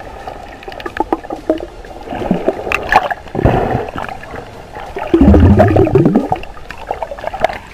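Underwater bubbling and turbulence heard through a camera housing, with scattered sharp clicks and two louder gurgling rushes of bubbles, the first about three and a half seconds in and the longer one about five seconds in.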